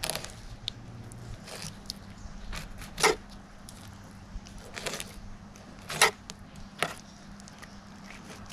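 Filleting knife slicing along a King George whiting's rib cage, with a handful of short, sharp scrapes and clicks, the loudest about three and six seconds in.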